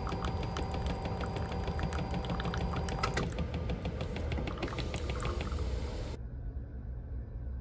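Automatic coffee machine dispensing coffee into a cup: a thin stream pouring and dripping with fine rapid ticks over a steady low hum, and a steady tone from the machine stops about three seconds in. The pouring sound cuts off about six seconds in, leaving only the low hum.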